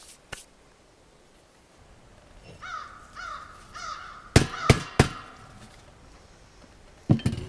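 Crows cawing repeatedly from about two and a half seconds in. Over the calls a hammer strikes a new black stovepipe section three times in quick succession, the loudest sounds here, with two more knocks near the end.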